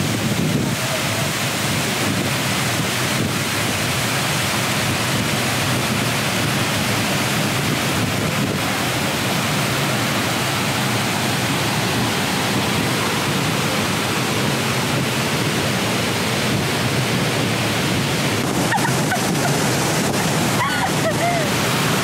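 Waterfall's steady rush of falling water, an even, unbroken noise from deep lows to high hiss.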